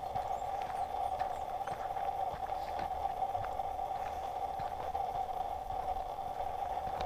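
Steady mid-pitched hum with faint, irregular footsteps on a dirt trail.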